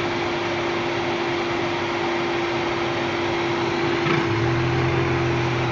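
Car engine running, with a steady whine over an even rushing noise; a lower steady hum joins about four seconds in. This is the suspect noise, which the owner places behind the engine block.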